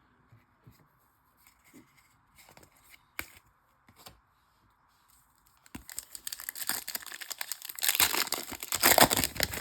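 Foil wrapper of a Bowman Chrome baseball card pack being torn open and crinkled. It starts with a few faint taps and clicks of card handling, and the tearing and crinkling begin about six seconds in and are loudest near the end.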